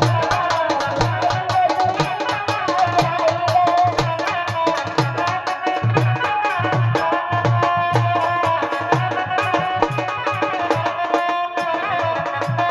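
Music with a steady, repeating hand-drum beat under a wavering melody line.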